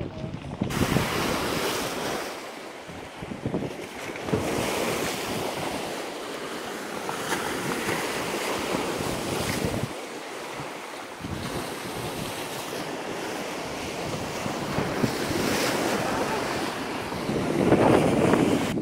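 Sea waves breaking and washing over a pebble shore and around rocks, a rushing surf that swells and falls, with wind buffeting the microphone. It starts abruptly about a second in and grows louder near the end.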